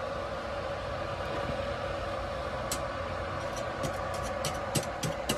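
Stick arc welding with 316 stainless rods: over a steady hum, the electrode is struck against thin-walled stainless box section. Sharp crackles and pops come from about halfway in, growing more frequent near the end as the arc catches.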